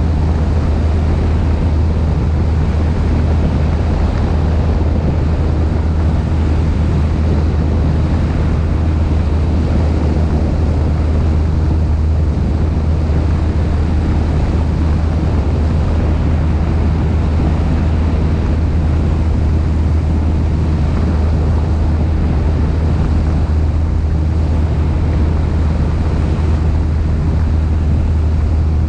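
Steady drone of a Cessna 172's piston engine and propeller, with wind rushing over the microphone.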